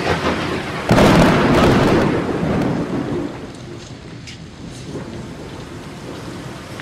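Rain falling steadily on a wet concrete rooftop, with a sudden thunderclap about a second in that rumbles and fades over the next two seconds.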